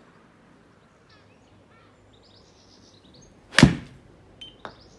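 A 9-iron strikes a golf ball off a hitting mat with one sharp crack about three and a half seconds in, followed within a second by two quieter knocks.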